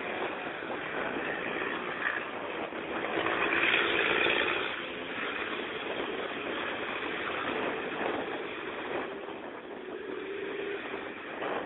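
Racing trucks' engines running round the circuit, heard from a distance as a steady rumbling haze. The sound swells louder about four seconds in.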